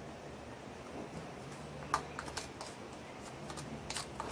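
Light clicks and taps of a spoon against a metal spice container or bowl while spices are being spooned out. A few quick clicks come about two seconds in and a couple more near the end, over a faint low hum.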